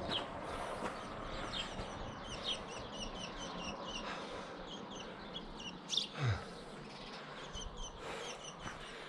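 Small birds chirping, many short high notes repeated several times a second. About six seconds in there is a brief knock followed by a short, low falling sound.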